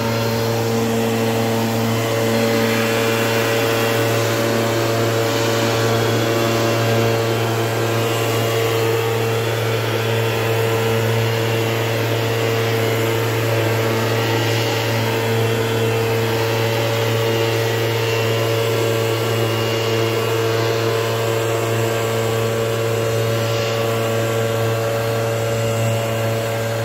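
The small engine of a backpack power sprayer (mist blower) running steadily at working speed, blowing pesticide mist through its hose nozzle. It is a constant drone that stays at the same pitch and level throughout.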